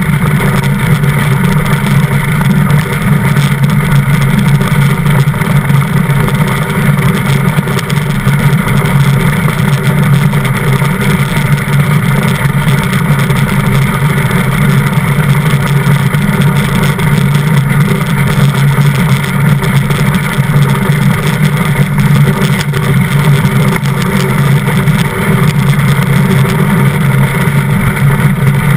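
DN iceboat sailing fast: a loud, steady rush of strong wind over the deck-mounted microphone mixed with the low rumble of its steel runners on the ice.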